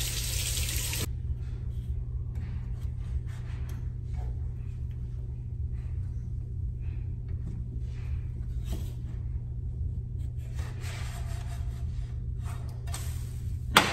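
Kitchen handling noises over a steady low hum: a short rush of noise at the start, scattered light clicks and rubbing, then one sharp knock near the end as a frying pan holding a pancake is handled.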